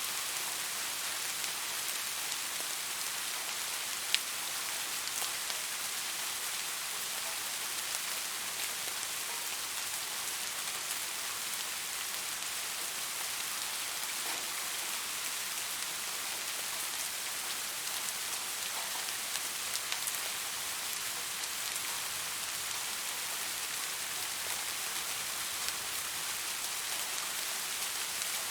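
Soft rain falling steadily: an even hiss with scattered individual drops ticking, and one sharper, louder drop about four seconds in.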